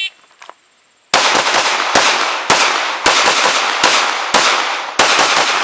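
The last instant of a shot timer's beep, then, about a second in, a handgun fired in a fast string of single shots roughly half a second apart, each with a ringing tail: a timed draw-from-concealment drill string.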